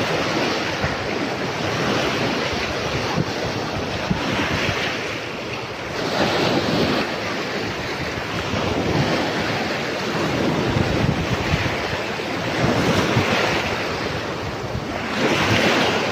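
Surf washing onto a sandy beach, a steady rushing noise that swells every few seconds as waves come in, with wind buffeting the microphone.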